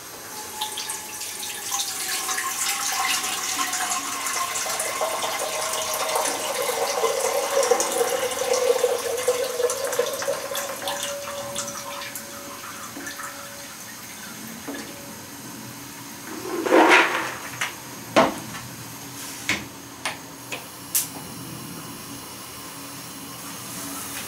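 Water pouring from a plastic bucket into a steel saucepan, a splashing pour of about twelve seconds whose tone slowly falls. It is then followed by a loud knock and a short run of sharp clicks as the gas hob is lit.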